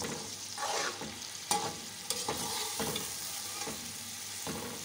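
Beef pieces frying in oil with whole spices, sizzling steadily while a metal spoon stirs them in a metal pot, the spoon scraping and clicking against the pot a few times. This is the bhuna stage, browning the boiled meat in the spiced oil.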